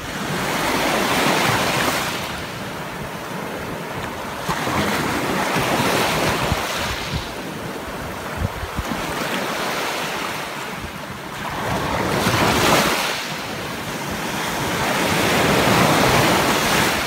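Small waves breaking and washing up onto a sandy shore, the surf swelling and falling back four times.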